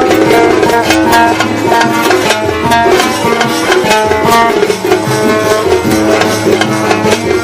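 Instrumental passage of live Yemeni wedding music, without singing: a quick plucked-string melody over a steady hand-drum rhythm.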